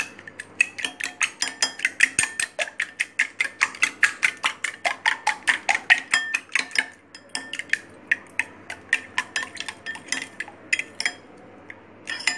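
A spoon beating eggs and milk in a glass bowl, clinking rapidly against the glass about five times a second. About seven seconds in the strokes slow and soften, with a couple of taps near the end.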